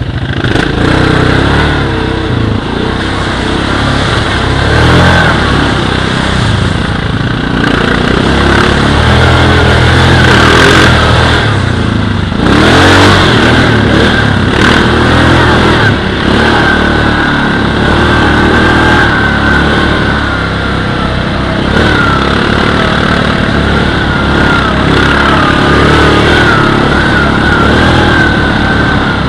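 ATV engine running hard under a rider on a muddy trail, revving up and down with the throttle. A brief rush of noise comes about twelve seconds in, and a high whine that wavers in pitch rides over the engine through the second half.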